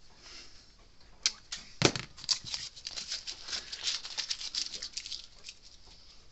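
Hand tools and a thin wire lead handled on a workbench: a knock just before two seconds in as a pair of wire strippers is set down, then a run of quick light clicks and rustles that dies away near the end.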